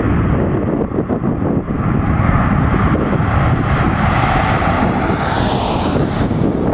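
Boeing 737-700's twin CFM56-7B turbofan engines at takeoff thrust during the takeoff roll: a steady, loud jet rumble with a hiss above it.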